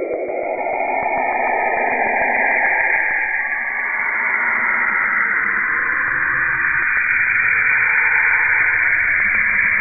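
Saturn's radio emissions converted to sound: a continuous hissing, whooshing noise with slowly sliding tones, one rising in the first couple of seconds, growing a little louder over the first few seconds.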